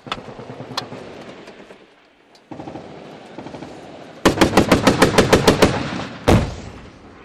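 Gunfire in a firefight: a few scattered shots, then about four seconds in a burst of automatic machine-gun fire at around eight rounds a second for about a second and a half. It is followed by a single heavy boom.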